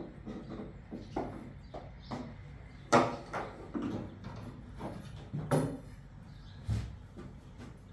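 Irregular knocks and scrapes on wood as a snake is worked out of a wooden grandfather clock case, the sharpest knock about three seconds in, another past the middle, and a duller thump near the end.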